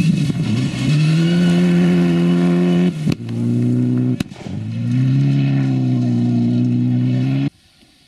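Mitsubishi Lancer Evolution rally car's turbocharged four-cylinder engine at high revs, flat out on gravel. About three and four seconds in come two sharp cracks at gear changes, and after each the revs drop and then climb again. The sound cuts off abruptly shortly before the end.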